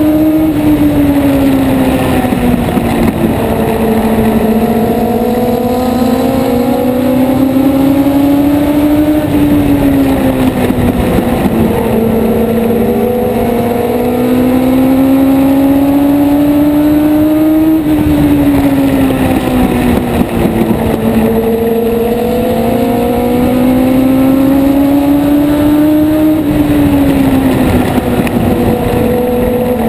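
Onboard sound of a short-track race car's engine at race pace. Its pitch climbs steadily down each straight, then drops sharply as the driver lifts into the turns, about every eight to nine seconds, three times over.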